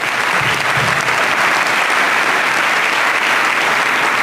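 An audience applauding steadily at the close of a told story.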